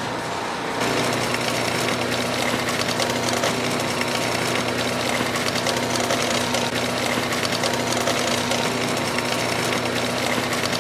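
Panel switch's General Electric AC/DC duplex motor running and driving the frame's shafts: a steady hum under a dense mechanical rattle that grows louder about a second in and then holds even.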